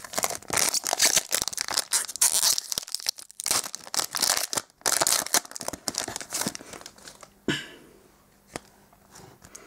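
Foil trading-card pack wrapper being torn open and crinkled: a dense crackling rustle of foil for about seven seconds. Then a single soft knock and a quieter stretch with a few light clicks near the end.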